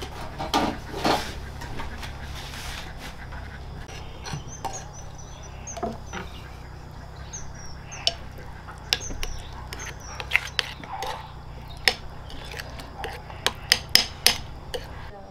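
Metal spoon stirring and scraping rice porridge in a ceramic bowl, clicking against the bowl many times, most often near the end. A short scrape about a second in.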